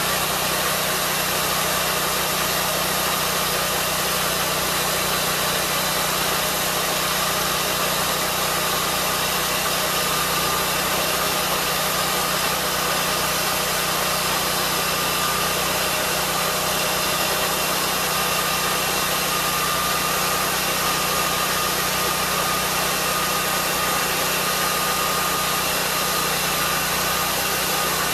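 Lucas swingblade sawmill running steadily, its engine held at a constant pitch as the circular blade is pushed slowly through a log.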